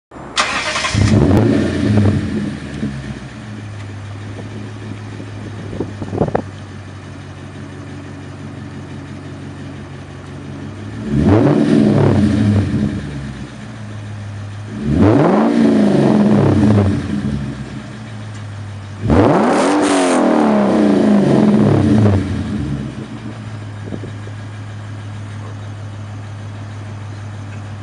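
2008 Lexus IS-F's 5.0-litre V8 through an ISSForged track exhaust, starting with a flare of revs and settling to a steady idle. After a short blip, it is revved three times, each rev rising and falling in pitch, the last held longest, then returns to idle.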